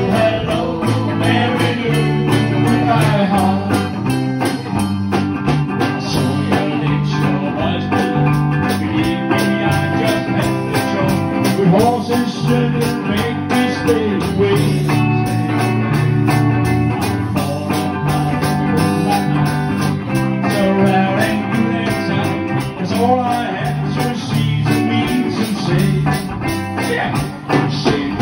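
Live band playing an upbeat rock-and-roll song on electric guitars and electric bass over a steady beat, with some singing.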